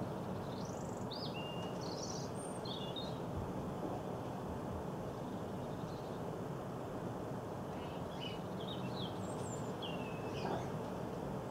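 Small songbirds chirping and twittering in short high phrases, in two spells: in the first three seconds and again from about eight seconds in. Under them runs a steady low background rumble.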